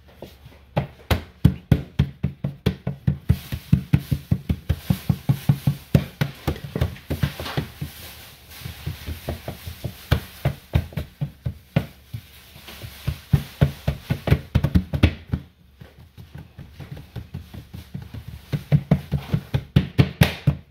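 Rapid, even dull thuds, about four to five a second, of hands patting and pressing pizza dough flat in a metal sheet pan, with a short break about three-quarters of the way through.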